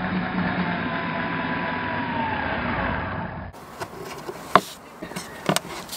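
Electric drill in a portable drill stand running steadily as it bores into a wooden board, its whine sagging in pitch shortly before it stops. Then a few light, sharp clicks as small wooden dowels are pushed into the drilled holes by hand.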